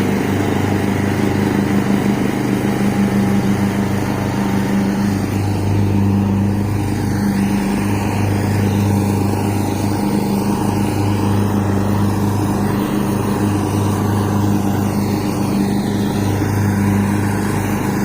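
Troy-Bilt Pony riding lawn mower's engine running at a steady, even pitch with the blades engaged, mowing on the newly replaced blade-drive belt.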